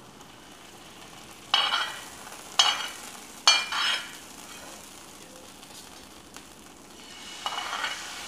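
Hot tempering oil with spices being ladled from a kadhai into a pot of cooked dal, sizzling sharply each time a ladleful goes in. There are four or five short bursts, with a lull in the middle.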